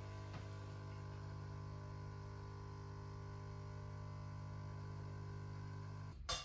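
Sage espresso machine's vibratory pump humming steadily while pulling an espresso shot. It cuts off abruptly near the end with a sharp click.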